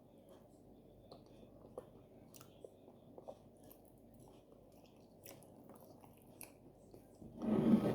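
Close-miked eating of soft oat fufu with slimy okro soup: faint wet chewing and small mouth clicks, then a louder noisy mouth sound lasting under a second near the end.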